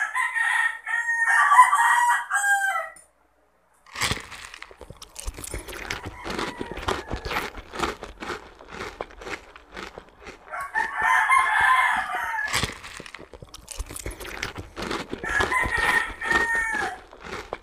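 A rooster crowing three times: near the start, about 11 s in, and about 15 s in. Between the crows, from about 4 s on, close crunching and chewing of bites of firm green mango.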